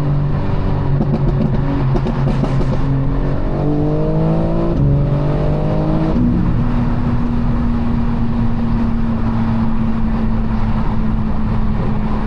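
BMW G82 M4's twin-turbo straight-six (S58) accelerating: engine pitch climbs, drops sharply at an upshift about five seconds in and again just after six seconds, then settles into a steady drone at cruising speed.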